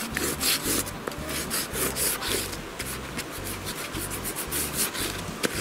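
Dry leaves rustling and scraping in quick, irregular strokes, several a second, close to the microphone.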